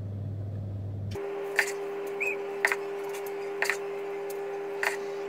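A metal tablespoon clicking about once a second as cupcake batter is scooped and dropped into paper cases, over a steady hum that starts suddenly about a second in.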